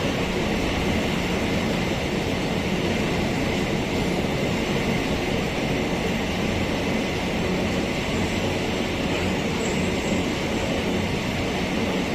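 Empty ore train passing on the rails, a steady rolling rumble with no horn or breaks in it.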